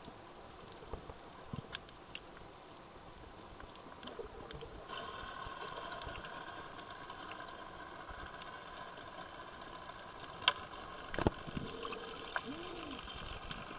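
Underwater hiss with scattered light clicks. About five seconds in, a steady multi-tone whine from a boat motor heard through the water comes in and keeps on, with a couple of sharper knocks near the end.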